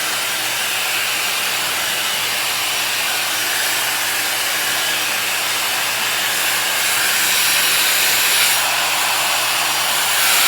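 1800-watt ionic hair dryer running steadily, a continuous rush of air over a faint motor hum, while blow-drying hair. It gets slightly louder from about seven seconds in.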